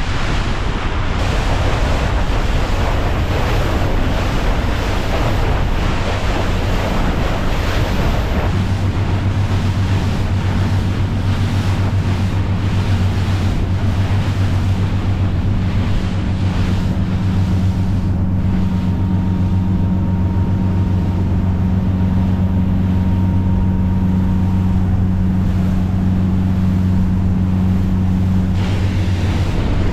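Motorboat engines running steadily under way, a constant low hum beneath rushing water and wind buffeting the microphone.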